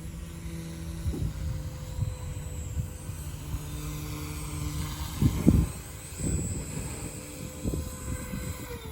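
Small electric RC helicopter (Lynx Oxy 2) flying with a steady motor and rotor whine, while strong wind buffets the microphone in low gusts, the loudest a little past the middle. Near the end the whine starts to fall in pitch as the rotor slows.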